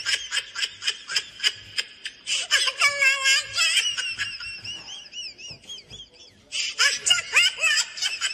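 High-pitched laughter in quick, rhythmic bursts. It thins out around the middle and breaks out again loudly near the end.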